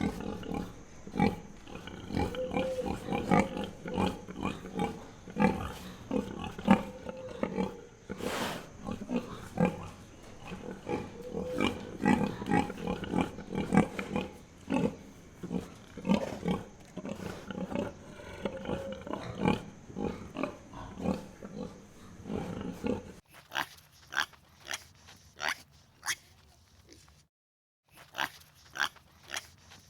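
Domestic pigs grunting and oinking, many short overlapping grunts in quick succession. About 23 seconds in it switches to a quieter passage of sparser, sharper single grunts, broken by a moment of complete silence.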